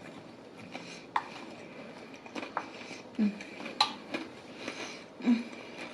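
Spoon clinking and scraping against a salad bowl, with a couple of sharp clicks and a few short low sounds in between.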